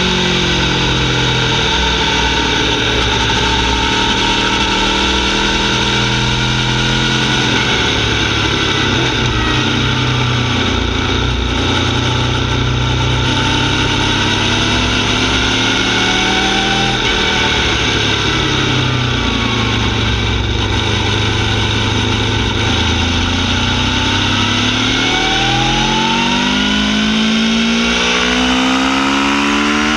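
Aprilia Tuono V4 R's V4 engine on a full titanium Akrapovic Evo exhaust with carbon fibre can, ridden at speed, its exhaust note falling and rising as the throttle is eased and opened. Near the end it accelerates hard, the pitch climbing steeply through the revs.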